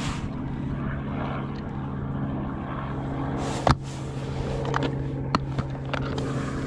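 Plastic lure boxes and bait jars being handled in a hard plastic tackle bucket: a few short clicks and knocks, the sharpest about three and a half seconds in, over a steady low mechanical hum.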